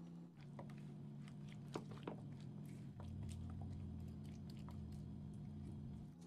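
Silicone spatula mixing peeled garlic cloves through a sticky red pepper paste and rice syrup coating: soft wet squishing with many small clicks of the cloves against each other and the bowl, and two sharper clicks about two seconds in.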